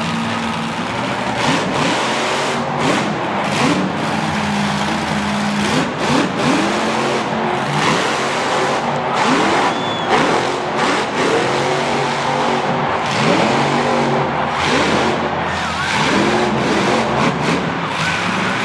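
Monster truck engine revving again and again, its pitch sweeping up with each burst of throttle, over a constant loud rushing noise.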